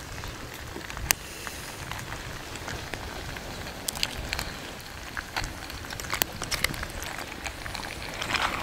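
Pot of pasta in tomato and mince sauce simmering on a camp stove, with scattered pops and crackles. Near the end a spoon stirs through the pot.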